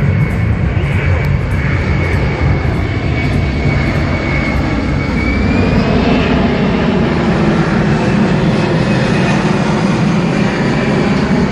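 Boeing C-17 Globemaster III's four Pratt & Whitney F117 turbofan engines running loudly during a slow low pass, a steady rumble with a high fan whine that bends upward about five or six seconds in.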